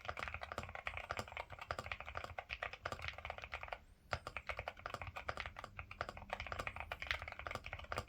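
Fast, continuous typing on a Ciddo V65 V2 mechanical keyboard with Akko Rosewood switches, the keystrokes clacking in quick succession with a brief pause a little before halfway.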